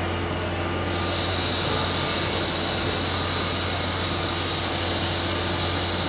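Steady machine noise from construction work: a constant low hum, joined about a second in by a high hiss and a steady high-pitched whine like a power tool running.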